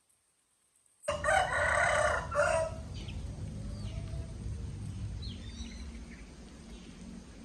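A rooster crowing once, starting about a second in and lasting about a second and a half. Faint chirps of small birds follow over a steady background noise.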